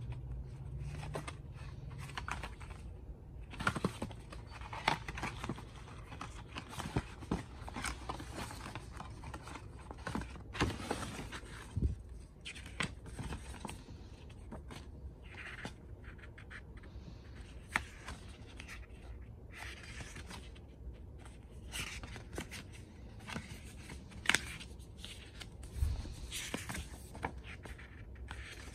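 Paper and card packaging being handled: rustling, scraping and crinkling as a printed leaflet and a card insert are turned over and unfolded, with scattered short taps and clicks.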